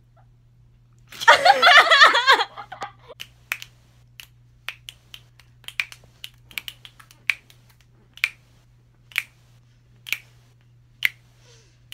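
Fingers snapping in a steady beat, roughly one snap a second. A short, loud burst of voices comes about a second in, before the snapping starts.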